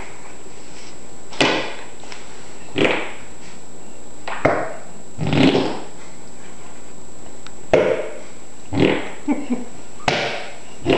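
Fake fart noises made by a person: about eight short, loud blurts, a second or so apart, with a few coming in quick succession near the end.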